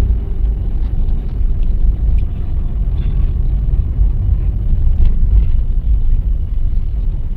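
A car being driven, heard as a steady low rumble of engine and road noise from inside the vehicle.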